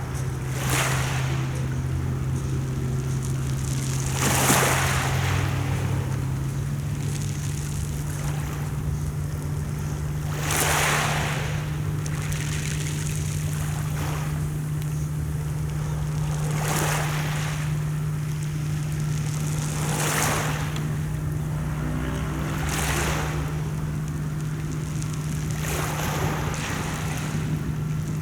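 Mediterranean sea waves surging and washing every few seconds over a steady low engine hum, which steps slightly higher in pitch about six seconds in.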